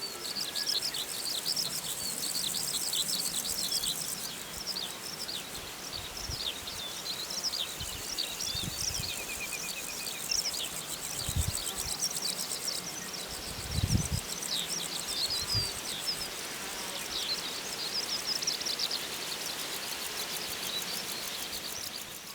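Wild birds singing steadily, a busy chorus of short high chirping phrases, with a lower descending trill about halfway through. A few brief low thumps come in the middle.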